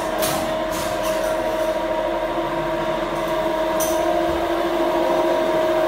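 A machine running steadily with a constant whine over a hum, its pitch not changing. There are a few light clatters in the first second or so.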